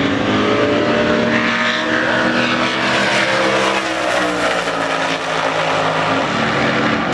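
Drag racing cars' engines at full throttle running down the strip, one of them a Chevy Nova. The pitch climbs then sinks over a few seconds as the cars go through and away.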